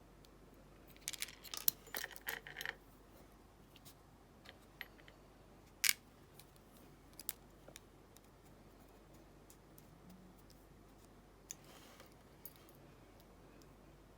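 Small metal padlock parts, the brass pins and springs of a lock core, clinking and rattling as they are handled. There is a burst of rattling clicks about a second in that lasts about two seconds, one sharp click around six seconds, and a few faint ticks later.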